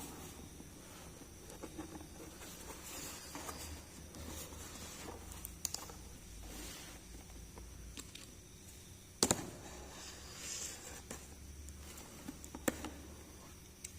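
Small plastic toy pieces and their packaging handled up close: soft rustling and light tapping, with a few sharp clicks, the loudest a quick double click about nine seconds in.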